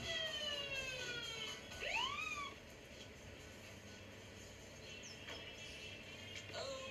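Police car siren played through a computer's speakers: a falling wail over the first second and a half, then a short rising-and-falling whoop about two seconds in.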